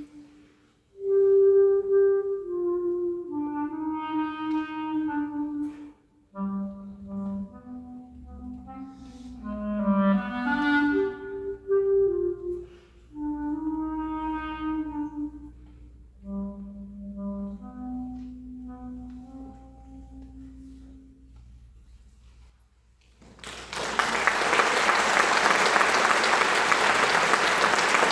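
A solo melody on one instrument, played in slow, sustained phrases that die away about three-quarters of the way through. After a brief pause, the audience bursts into applause as the piece ends.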